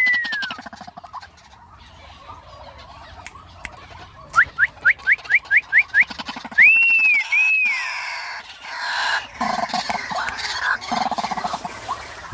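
Male white-breasted waterhen calling from its pen: a run of about seven quick rising notes, roughly four a second, then two longer arched calls. Softer calls and rustling follow in the latter part.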